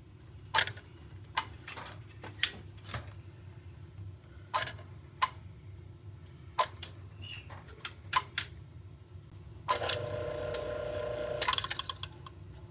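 Sharp metallic clicks and taps from handling a boiler circulator pump that has just been oiled to free it up. About ten seconds in, a steady hum with a held tone sets in for a couple of seconds. A quick run of clicks follows near the end.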